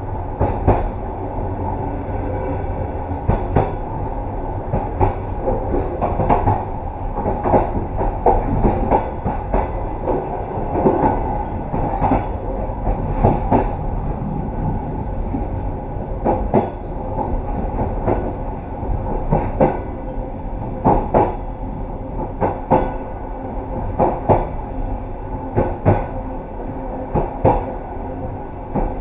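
Train running on jointed track: a steady rumble with wheels clacking over the rail joints, the clacks coming in regular pairs about every second and a half through the second half.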